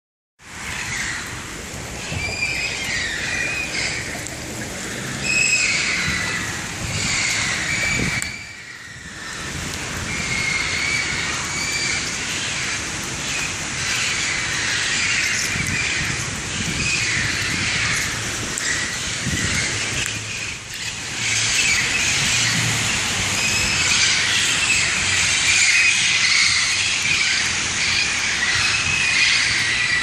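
A flock of feral parrots squawking loudly and continuously from the street trees, many harsh, screechy calls overlapping one after another.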